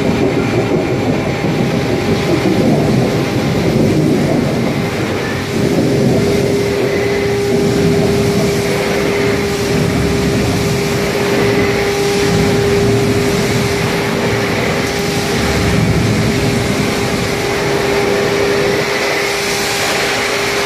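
A 4000-tonne Kramatorsk K8546 hot forging press running with a steady mechanical hum and a constant tone over a rumble of shop noise. No forging blows are heard.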